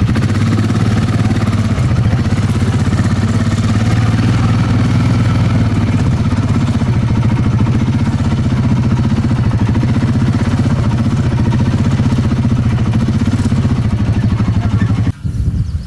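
A small engine running steadily at idle after being started, then cutting off abruptly near the end.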